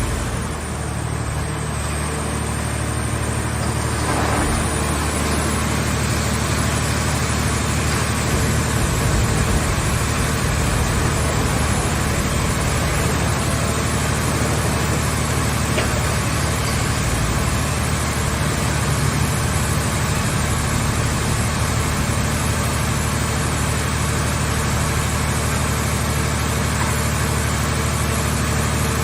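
Hydraulic scrap-car baling press's power unit running with a steady, unbroken drone and low hum.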